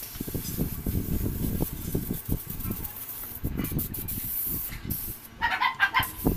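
Refrigerant gas hissing and fluttering out of an open copper tube as a refrigerator's sealed system is flushed to blow out carbon, with the valve partly closed. Over the last second a small dog yaps several times in quick succession.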